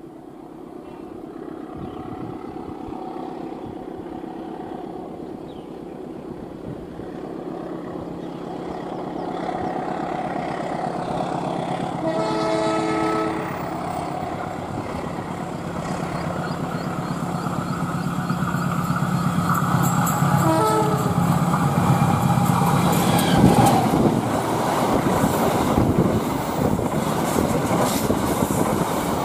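Indonesian diesel locomotive approaching with its engine drone growing louder, sounding its horn once for about a second and a half and again briefly later. The train then passes close, with loud rushing rail noise.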